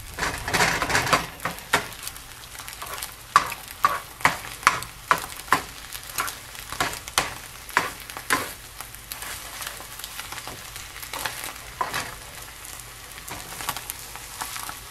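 Scrambled eggs sizzling softly in a nonstick frying pan while a slotted spatula chops and scrapes them against the pan bottom. The spatula makes repeated taps, about two a second, that thin out in the second half.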